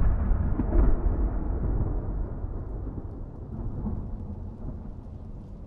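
A deep boom that hits suddenly and rolls on as a low rumble, slowly fading: a trailer's opening sound effect.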